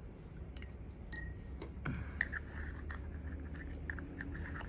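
Light, scattered clicks and taps of a paintbrush working wet bleed-proof white paint on a palette.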